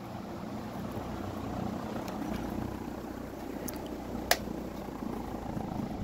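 1982 SMC D4W36 36-inch ceiling fan running at speed: a steady motor hum under the whoosh of its spinning blades. A single sharp click about four seconds in.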